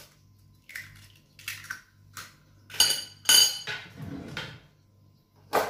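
An egg tapped and cracked against the rim of a glass mixing bowl, with more light knocks of shell and glass: a series of short clinks, the loudest two about three seconds in ringing briefly.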